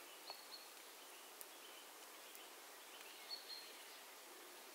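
Near silence in the woods with faint, scattered bird calls: short high chirps, a few around the start and another cluster about three seconds in.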